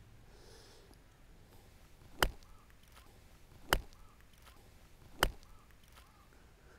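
Three crisp clicks of a wedge striking a golf ball, the first-sample AXIS wedge on short spin approach shots, evenly spaced about a second and a half apart.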